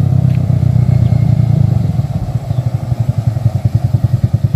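ATV engine running as the quad approaches, then dropping to a rapid, even putter about two seconds in as the throttle is eased off and it rolls in slowly.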